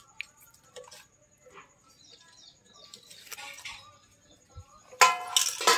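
Green chillies dropped a few at a time into an aluminium pot of water, giving soft taps and small splashes, then about five seconds in a loud ringing metallic clank of the steel utensils.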